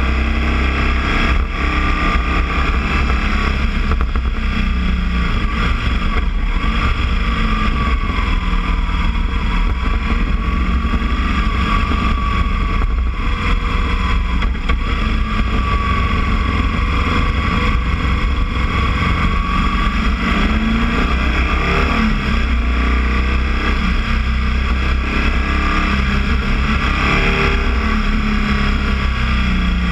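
Motorcycle boxer engine running under way, a steady low rumble with engine speed rising and falling as the bike rides on.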